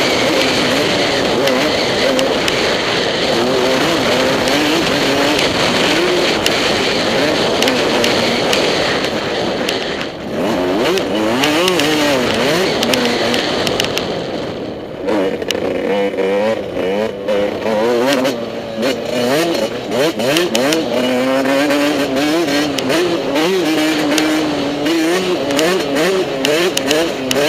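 Motocross bike engine under hard riding, its pitch rising and falling again and again as the throttle opens and closes through gears, with brief drops in engine note about ten seconds in and again around fourteen seconds. Short knocks run through the second half.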